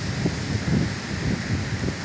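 Rain falling in a steady hiss, with wind buffeting the microphone in irregular low gusts.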